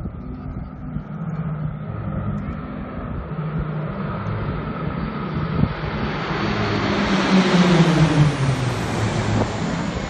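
A formation of small aircraft flying overhead: the engine and air noise builds up and is loudest about eight seconds in, its pitch dropping as the planes pass over.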